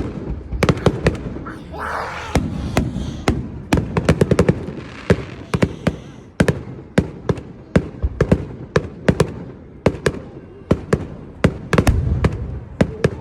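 Fireworks going off in a rapid string of sharp bangs and crackles, several a second, starting suddenly and carrying on without a break.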